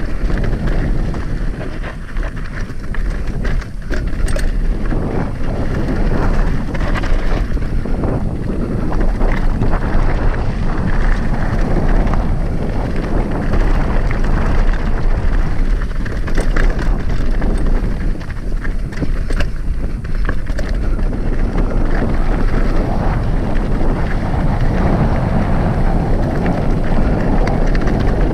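Wind buffeting the microphone over the clatter of an Upland hardtail mountain bike descending rocky ground at speed, with repeated knocks and rattles from the unsuspended rear end.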